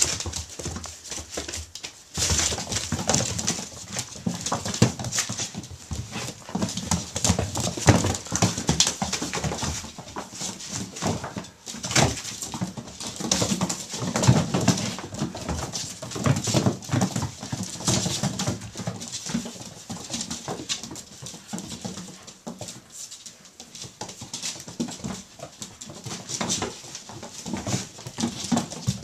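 A litter of six-week-old puppies jostling and scrabbling around a feeding dish on a tile floor: a busy, continuous run of small clicks, knocks and scuffles.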